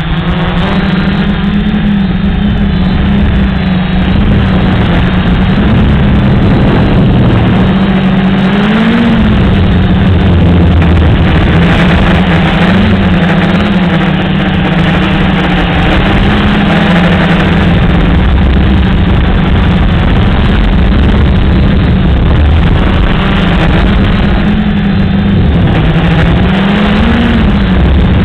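Gaui 330XS quadcopter's electric motors and propellers humming steadily, heard loud and close from a camera on the craft. The pitch rises briefly with throttle about nine seconds in and again near the end.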